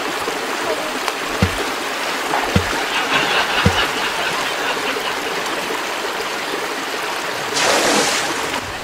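Flowing stream water making a steady rushing, with a few soft low thumps in the first few seconds and a brief louder rush of noise near the end.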